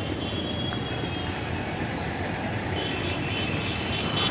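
Steady outdoor traffic noise with thin, steady high-pitched squeals or whines over it.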